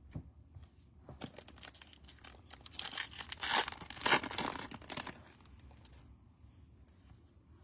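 Foil trading-card pack wrapper being torn open and crinkled, a run of crackling rips that peaks in the middle and dies away about two seconds before the end.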